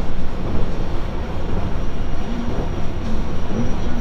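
JR Shikoku 5000 series electric train heard from inside the car while running: a steady rumble of wheels and running gear, with a faint high whine from its Toshiba IGBT inverter drive that rises a little near the end.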